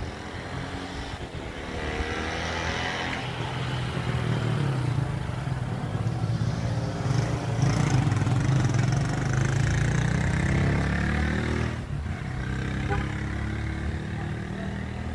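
A motor vehicle engine running close by, growing louder over several seconds and then dropping off about twelve seconds in, with engine noise going on more quietly afterward.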